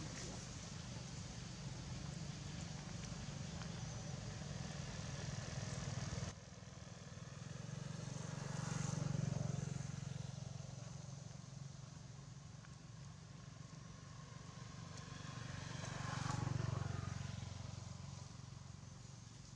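Road traffic: a steady engine hum, with vehicles passing that swell and fade twice, around the middle and again near the end.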